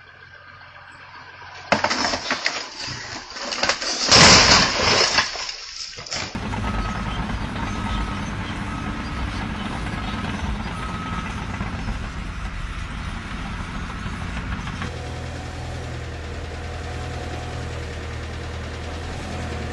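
Loud, noisy clattering for a few seconds, then an engine running steadily, with a short beep repeated five times over it.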